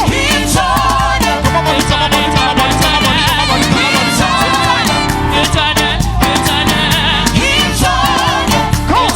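Up-tempo Afro gospel praise music: voices singing over a band with a steady, driving percussion beat.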